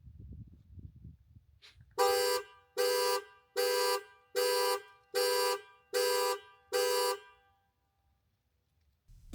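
Car horn sounding seven short, evenly spaced beeps, starting about two seconds in and stopping after about five seconds, the regular pattern typical of a key-fob panic alarm.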